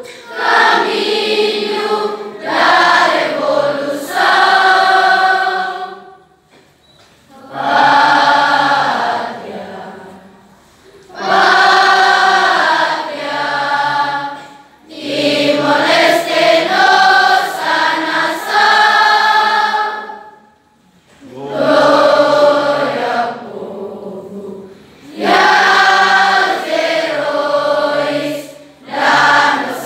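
A large group of school students singing together in unison without accompaniment, in phrases of several seconds broken by short pauses for breath.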